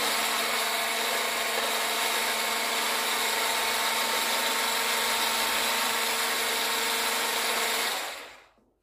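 Electric stick blender with a whisk attachment running steadily at one speed, a steady motor hum, whisking eggs, sugar and butter into batter; it is switched off about eight seconds in and winds down.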